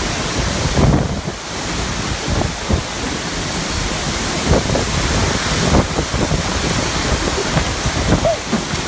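Hurricane wind buffeting a phone's microphone along with heavy rain, a loud steady rush with gusting low rumbles.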